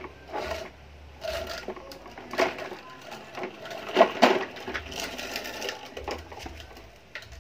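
Plastic toy vehicles clattering and knocking as they are handled, moved and set down on paving stones, with a loud pair of knocks about four seconds in.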